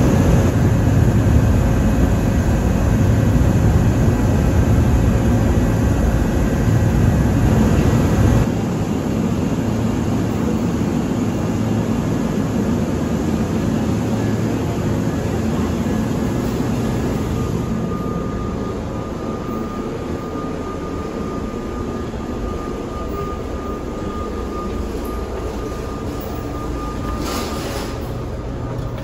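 Steady rumble of an electric train standing at a station platform, louder for the first eight seconds, then dropping suddenly. From a little past halfway a steady high tone sounds for about ten seconds, and there is one short click near the end.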